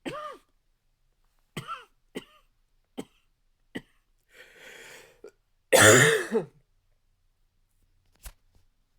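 A man's dry, barky cough: the tail of one cough at the start, a few faint short throat sounds, then one loud cough about six seconds in.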